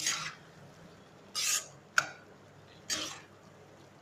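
Slotted stainless steel spatula stirring thick kidney-bean gravy in a non-stick pan: four short scrapes through the beans, with a sharper click about two seconds in.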